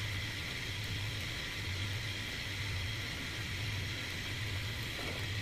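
Wood lathe running with a steady motor hum and a high whine while a hand chisel scrapes the spinning wooden workpiece.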